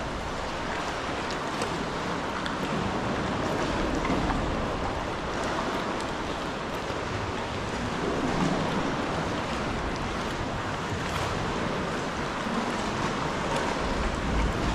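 Sea water washing and lapping against rock inside a sea cave: a steady wash with many small, sharp splashes through it.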